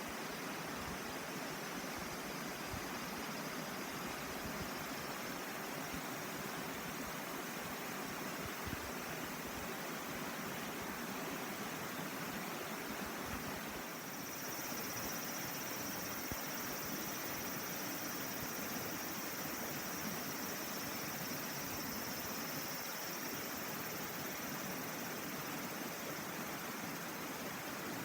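A mountain river babbling steadily: an even wash of flowing water. About halfway through, a faint high steady tone joins it for several seconds.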